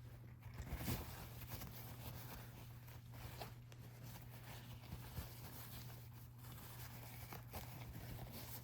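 Faint rubbing of a cloth wiping window cleaner over a Zippo lighter's metal case to shine it, with a few light clicks, over a steady low hum.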